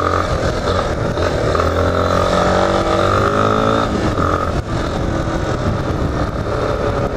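Yamaha XTZ 250 Lander's single-cylinder engine pulling on the road, its pitch rising over the first few seconds and then easing off, with steady wind noise.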